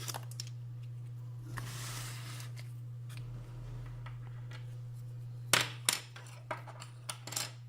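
Small plastic alarm-sensor parts and a mounting bracket being handled: a soft rustle about two seconds in, then a quick run of sharp plastic clicks and taps near the end, over a steady low electrical hum.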